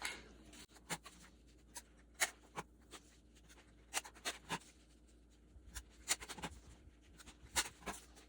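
Construction paper and poster board being handled, with a few short, sharp stapler clicks as paper strips are stapled onto a poster-board band. The sounds are faint.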